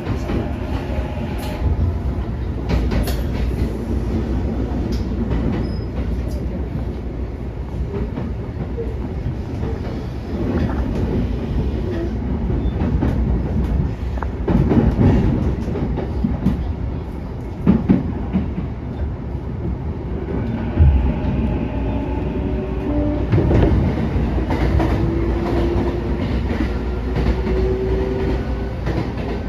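An electric commuter train pulling out and running, heard from inside the carriage: a steady low rumble with the clack of wheels over rail joints. A whine rises in pitch over the last several seconds as the train picks up speed.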